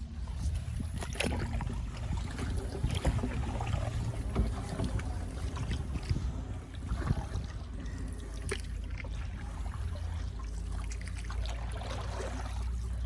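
Canoe being paddled: paddles dipping and splashing, with scattered light knocks. Under it runs a steady low rumble of wind on the microphone.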